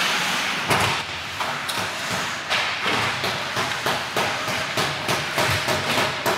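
Ice hockey play along the boards: an irregular run of sharp knocks and clacks from sticks, puck and players hitting the boards and glass.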